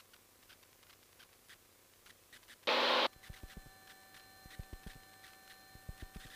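Aircraft radio and intercom audio that is nearly quiet with faint clicks. About three seconds in there is a short burst of radio static, after which a faint steady electronic whine sets in.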